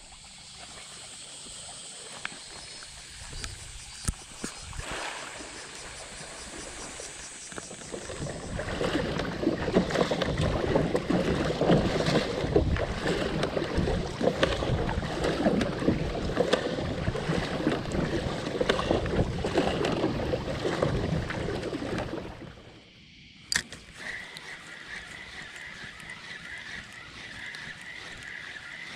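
Water noise around a fishing kayak on the sea: steady lapping and splashing with scattered knocks. It grows much louder from about nine seconds in, then drops off sharply about twenty-two seconds in. A quieter stretch follows with a steady, wavering high tone.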